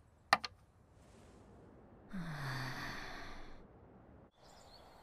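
A xiangqi piece set down on a wooden board with a sharp clack, about a third of a second in. About two seconds in, a person gives a long breathy sigh, the voice dropping in pitch.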